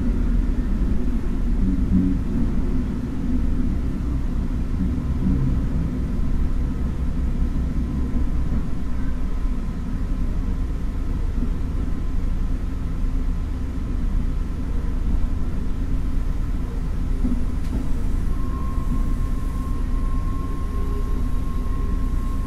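DR1000-series diesel railcar running slowly, heard from inside the car: a steady low rumble of the engine and the wheels on the rails. A thin steady whine joins about 18 seconds in as the train slows.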